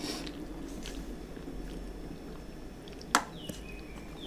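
A hand mixing rice on a stainless-steel plate: soft squishing, with one sharp click of fingers or a ring against the metal about three seconds in, over a steady low hum. A few short high chirps, like a bird's, come near the end.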